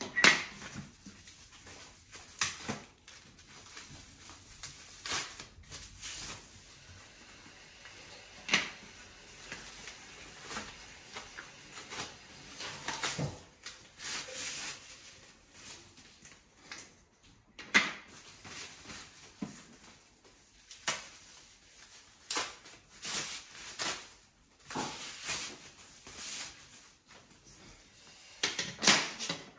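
Irregular knocks and clacks of long white TV bezel strips being handled and set down on a wooden floor. A few sharper clacks stand out, one near the start, others about a third and two thirds of the way in, and one near the end.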